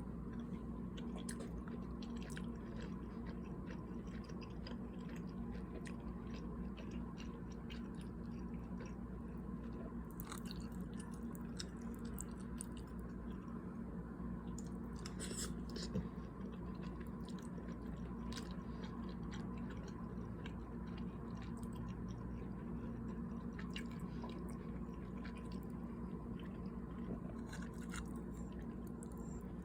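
Close-up mouth sounds of a person chewing cheesy beef taco macaroni: soft wet smacks and small clicks, a few at a time, over a steady low background hum.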